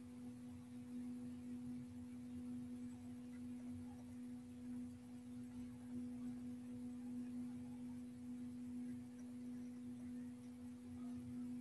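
A faint, steady pure tone with a weaker tone an octave above it. It holds without fading, wavering only slightly in loudness.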